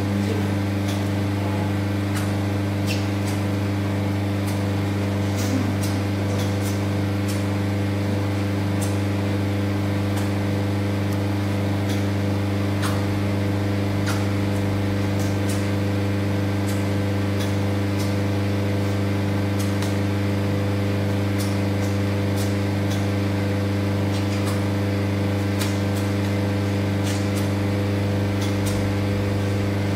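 Vacuum RF roller body-contouring machine running, its vacuum pump giving a loud, steady electric hum, with scattered faint clicks as the roller handpiece is worked over the skin.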